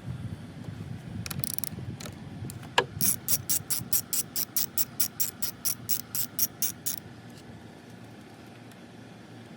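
Hand ratchet wrench clicking as it is worked: one sharp click, then a steady run of about twenty clicks at about five a second, lasting some four seconds.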